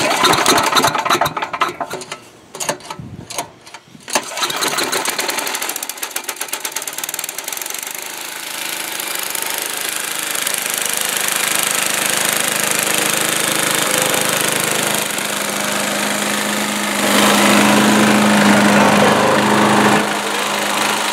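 Patriot Forester mulcher's 10 hp Tecumseh engine pull-started from cold on choke: a rope pull and a few seconds of uneven firing, then it catches about four seconds in and settles into a steady run. It gets louder for about three seconds near the end before easing back.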